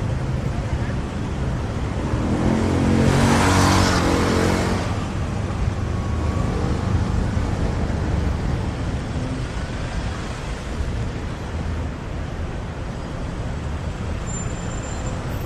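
Busy city street traffic: car and motorbike engines run steadily. About three to five seconds in, one vehicle passes close and loud, its engine note and tyre hiss swelling and fading.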